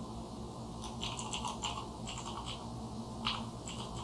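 Computer keyboard keys tapped in a short irregular run of faint clicks, over a low steady hum.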